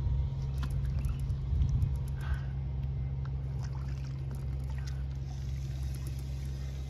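A steady low motor hum, with water trickling and a few light drips and clicks in the first two seconds.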